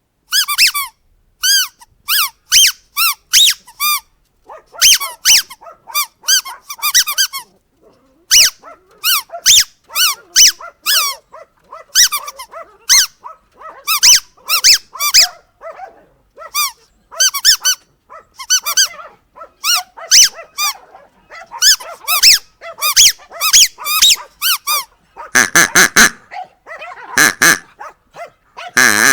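Rubber squeaky dog toy squeezed again and again, short squeaks in quick clusters of two to six, each squeak bending up and down in pitch. Near the end a lower, rougher sound comes in among the squeaks.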